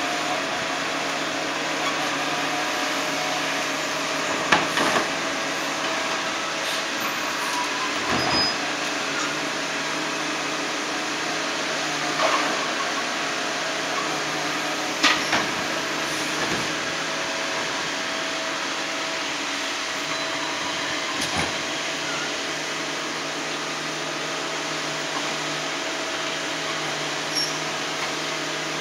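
CCC Labrie Automizer right-hand side-loader garbage truck running steadily while its automated arm lifts and empties wheeled carts, with about five short, sharp clanks as the carts and arm knock against the truck.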